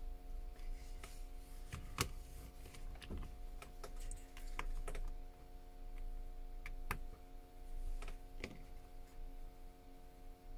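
Irregular light clicks and taps, a sharper click about 2 seconds in and another about 7 seconds in, over a steady low hum.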